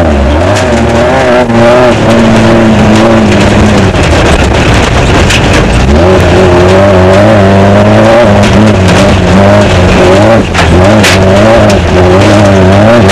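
Off-road desert race car's engine heard on board, rising and falling in pitch continuously as the throttle works, easing off about four seconds in and then pulling again. Scattered knocks and rattles sound over it.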